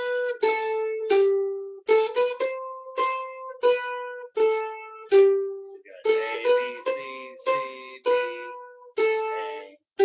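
Mandolin picking a fiddle-tune melody slowly, one note at a time, each note struck sharply and left to ring, with a short run of quicker picking about two-thirds of the way through.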